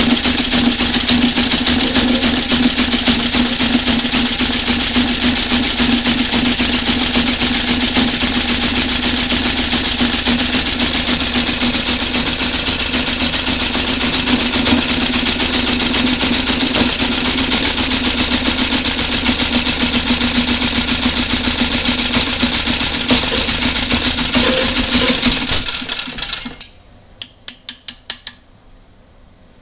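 Small gasoline generator engine running on diesel fuel with a capacitor-discharge plasma spark ignition, firing at a steady even rate. About 26 seconds in it cuts out, gives a few separate pops, and stops.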